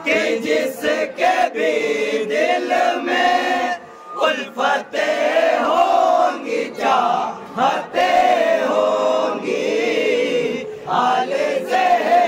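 A Muharram manqabat, a devotional poem, chanted by male voices with long held, wavering notes broken by short pauses for breath.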